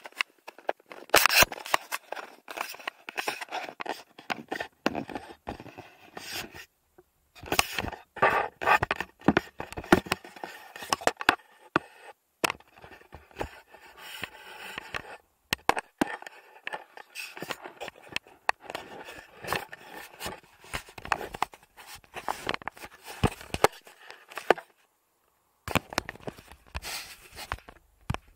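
Camera handling noise: irregular scraping, rubbing and sharp clicks of the camera and its mount being moved, close to the microphone. The sound cuts out to silence twice, for about a second each time.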